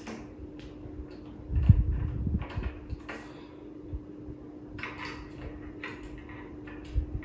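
Handling and knocking as a black plastic swivel caster is set against the wooden easel base and its screws are started: a few dull knocks, the loudest about a second and a half in, and short clicks later, over a steady low hum.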